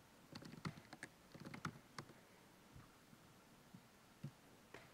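Faint typing on a laptop keyboard: a quick run of key clicks in the first two seconds, then a few scattered single clicks.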